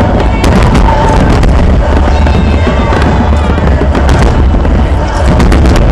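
Aerial fireworks display: a dense run of booming shell bursts and sharp crackling reports, with music playing alongside.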